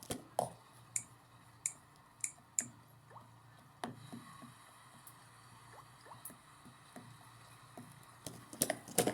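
Washing machine with water dripping and gurgling in short rising blips and scattered small sharp clicks, as the washer is about to go into its spin.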